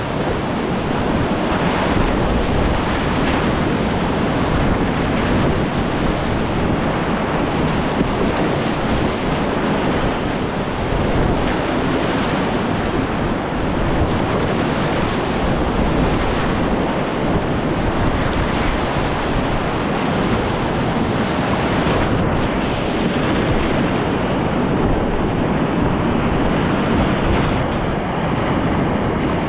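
Loud, steady rush of whitewater rapids on a mountain river. About two-thirds of the way through, the highest part of the hiss drops away.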